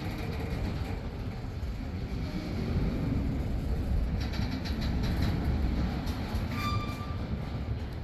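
Union Pacific train rumbling past, steady and low, with a stretch of rattling about halfway through and a short high tone near the end.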